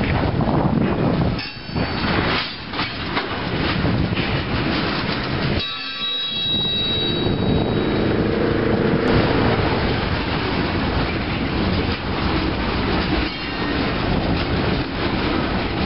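Freight train cars rolling past close by: steel wheels clacking and rumbling on the rails in a steady, loud stream of noise, with a faint ringing tone for a couple of seconds near the middle.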